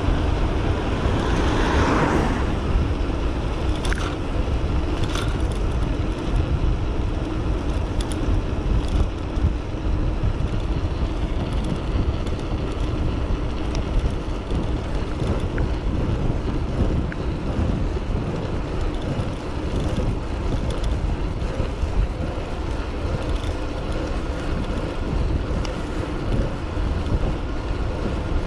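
Wind rushing over a GoPro action camera's microphone on an electric bike moving fast along a main road, with tyre and traffic noise. A louder swell of noise comes about two seconds in, with a few light knocks after it.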